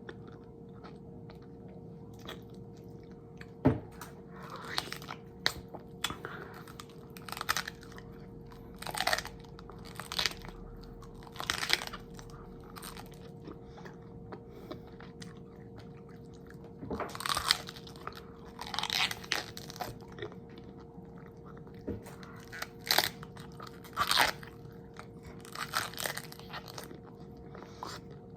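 Close-miked eating sounds: crunchy bites followed by chewing, coming in irregular bursts every second or two with short pauses between.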